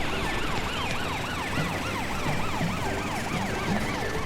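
Cartoon police car and fire truck sirens wailing together, each a quick rising-and-falling yelp repeated a few times a second, as the emergency vehicles set off on a call.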